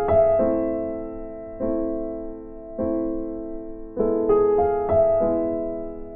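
Slow piano music: chords struck about every second and a bit, each fading before the next, with a short run of quicker notes about four seconds in.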